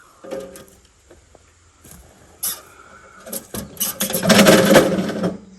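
Recoil starter of a DR Premier 300 wood chipper's Briggs & Stratton engine being pulled: a short pull about two and a half seconds in, then a longer, louder pull near the end that turns the engine over without it starting.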